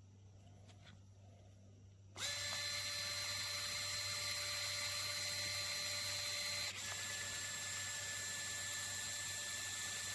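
Mini electric rotary drill motor starting up about two seconds in and running with a steady high whine; a little past halfway its tone shifts slightly and it keeps running.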